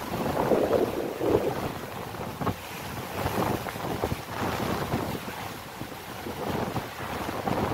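Gale-force wind gusting across the microphone over a rough, choppy sea washing against the quay and moored boat; the gusts are strongest about a second in.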